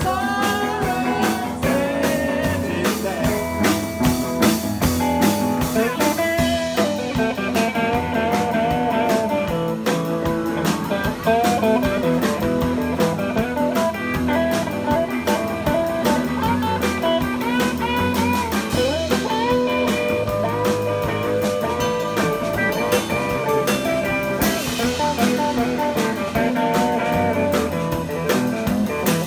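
Live blues-rock band playing: a guitar lead with sliding, bent notes over drums keeping a steady beat.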